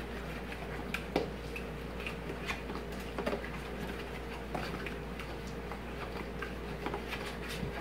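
Silicone spatula stirring a thick, creamy soup mixture in a large stainless steel mixing bowl: soft, irregular scrapes and wet squelches, over a steady low hum.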